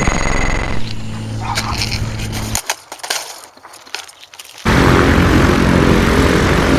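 An engine running with a steady low hum that cuts off abruptly; after a quiet stretch with a few clicks, a louder engine noise starts suddenly about two-thirds of the way in and keeps going.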